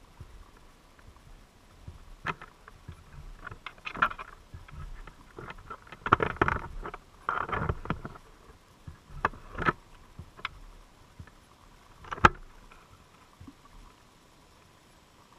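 Underwater knocks and scraping against a crab trap, heard through the camera's waterproof housing. Scattered sharp clicks are broken by a denser run of scraping between about six and eight seconds in.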